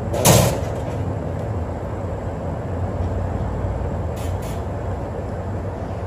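Steady low rumble of a train, with one short, loud burst of noise about a third of a second in.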